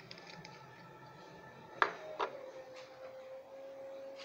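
A metal spoon clinks twice against a dish, a little under two seconds in and again just after, and a steady ringing tone follows.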